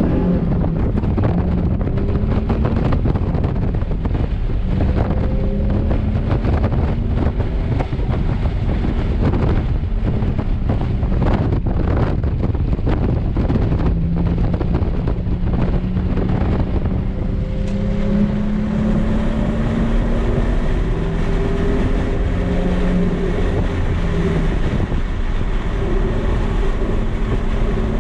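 Nissan 370Z's 3.7-litre V6 pulling hard on a race track, its revs climbing and dropping back again and again through gear changes, over rushing wind noise.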